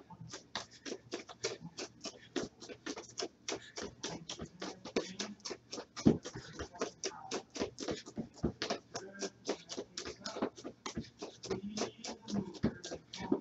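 Quick, even footfalls of a person running in place on a floor, about five steps a second, with one heavier stomp around the middle.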